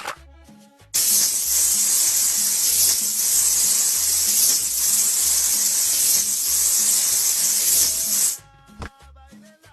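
A loud, steady spraying hiss starts about a second in and cuts off suddenly near the end, over background music with a steady beat.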